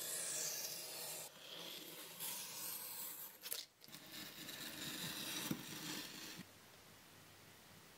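Snap-off utility knife blade drawn along a steel ruler, slicing through printed decal paper in several long scraping strokes with a short break in the middle, then it stops.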